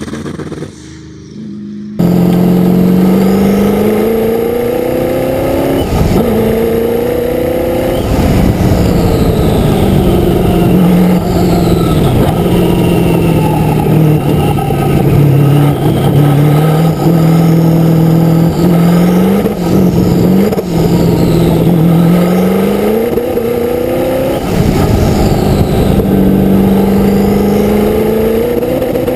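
Twin-turbo 6.0-litre LQ9 V8 of a race car, first heard faintly from trackside, then loud from on board, accelerating and shifting: the engine note climbs and drops sharply several times as it changes gear, easing back and rising again through corners. Thin whistling glides sit above the engine note, from the twin turbos.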